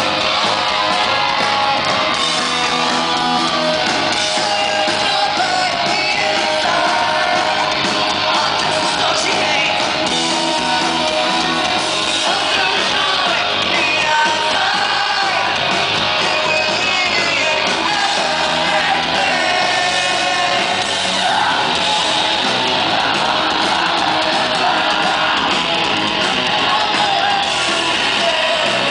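Live rock band playing loudly: electric guitar and bass guitar with a male lead singer singing and shouting into a microphone, heard from the crowd in a club hall.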